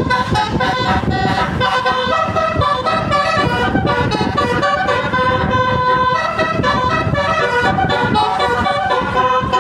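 Tour bus's telolet basuri musical horn playing a tune, its notes stepping up and down one after another.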